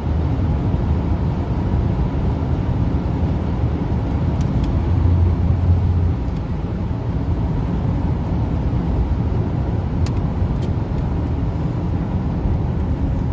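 Steady low rumble of road and engine noise inside a moving car's cabin, with a few faint clicks.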